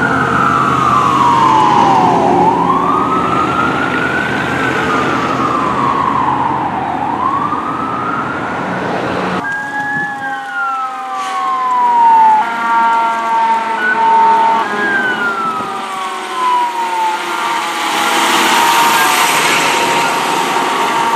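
Fire truck sirens on responding ladder trucks: first a siren wailing slowly up and down over the truck's engine; after a cut, another siren winds down in pitch in repeated sweeps with steady tones held alongside. The truck's engine and road noise swell near the end as it passes close by.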